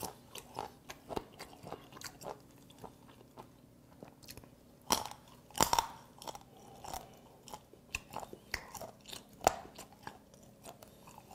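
Close-up chewing of a piece of steamed cuttlefish mouth, a firm part: irregular small crunching clicks, with a few louder crunches about five and nine seconds in.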